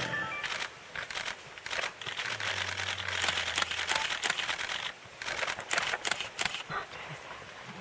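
Leaves and twigs rustling and crackling in dense forest vegetation, busiest in the middle, with a steady low hum underneath for a couple of seconds and a few sharp clicks near the end.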